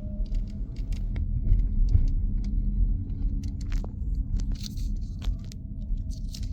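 Road and tyre rumble inside an electric car's cabin while driving, with scattered light clicks and rattles.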